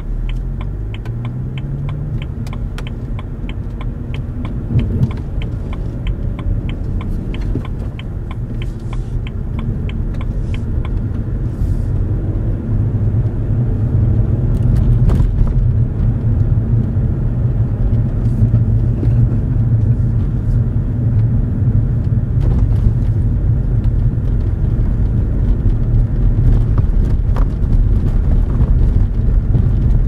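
Car engine and tyres heard from inside the cabin as the car pulls away and picks up speed on a snow-covered road. The engine note rises over the first couple of seconds, a turn-signal relay ticks about three times a second for roughly the first ten seconds, and then a steady low rumble grows louder.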